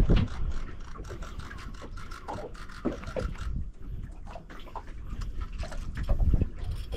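A spinning fishing reel being cranked, a buzzing whir that fades out about halfway through, with low rumbling bumps that are loudest at the start and about six seconds in.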